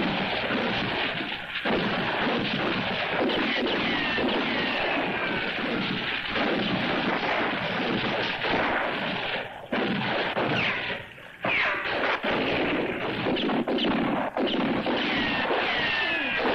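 A dense, continuous volley of gunfire from many guns at once, the shots overlapping, with high whining ricochets falling in pitch again and again. The firing drops away briefly twice, near ten and eleven seconds in.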